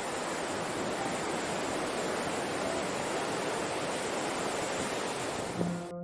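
Ocean surf breaking on a rocky shore: a steady rushing wash of waves that cuts off just before the end as music comes in.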